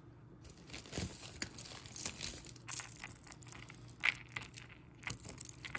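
Handling sounds: light clicks and rattles from a pink acrylic statement necklace with gold-tone metal links as it is picked up and handled, mixed with crinkling, with a few sharper clicks about a second in, around four seconds and near the end.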